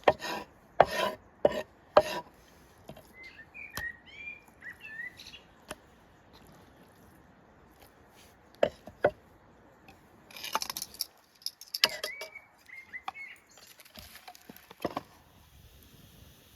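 Knocks, clicks and scraping of hands-on food preparation with utensils, with a bird chirping in the background twice, a second or two each time.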